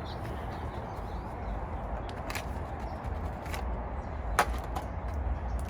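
Steady outdoor background noise with a low rumble, and a few short clicks; the loudest comes about four and a half seconds in.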